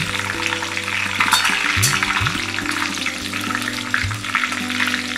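Washed curry leaves sizzling and crackling in hot oil in a metal kadai, stirred with a metal spatula. Soft background music plays underneath.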